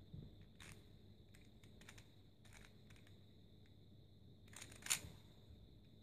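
Faint, sparse plastic clicks of a Rubik's cube's layers being turned by hand, with a slightly louder cluster of clicks near the end.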